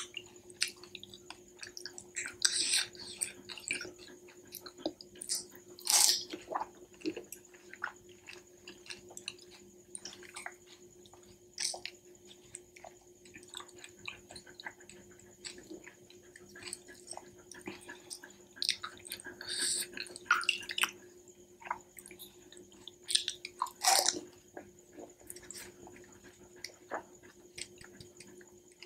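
Close-miked eating of pani puri: crisp hollow puri shells crunching and being chewed wetly, with water dripping and splashing as puris are dipped into the spiced pani. The crunches come irregularly, the loudest about six seconds in and again near twenty-four seconds.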